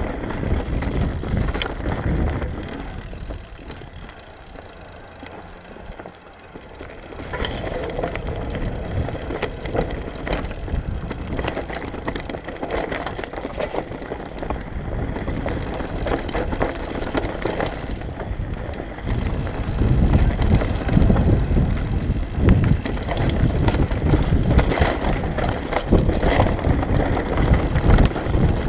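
Lapierre downhill mountain bike riding fast down a dirt trail, heard from a GoPro on the rider: tyres rumbling over the ground with frequent rattles and knocks from the bike. It goes quieter for a few seconds early in the descent, then grows louder and rougher from about two-thirds of the way through.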